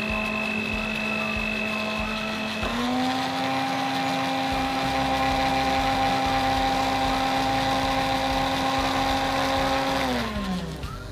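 Electric blender motor running while blending herbs and spices with a little water. About three seconds in it steps up to a higher speed, runs steadily, then is switched off near the end and winds down with a falling pitch.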